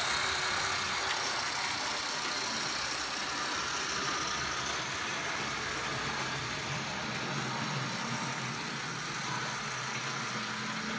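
Model train locomotives running on a DC layout: a steady mechanical hum of the small motors and the wheels rolling over the track.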